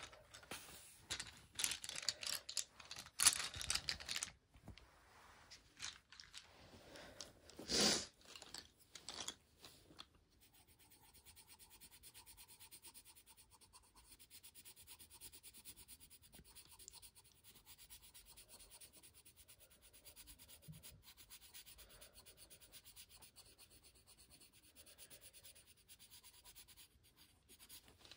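Colored pencil shading on paper: faint, fast, even scratching strokes. For the first ten seconds or so, louder irregular rustling and knocks come as the pencils are handled and swapped.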